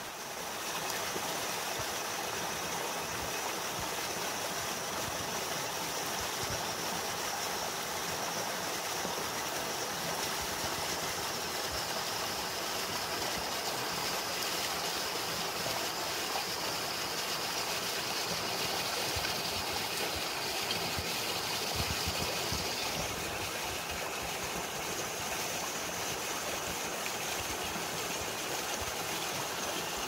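A small waterfall pours into a rock pool while the stream ripples over a shallow rock ledge, a steady, even rush and splash of running water.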